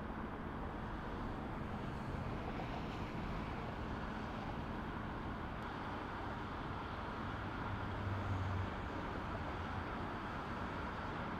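Steady distant vehicle rumble in open air, with a low hum that swells briefly about eight seconds in.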